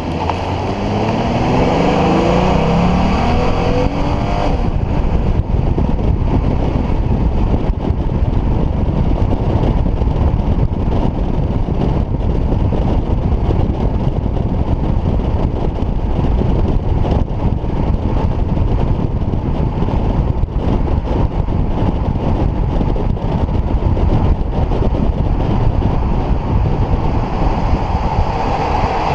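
A car accelerating, its engine note rising over the first four seconds or so, then steady, loud road and wind noise.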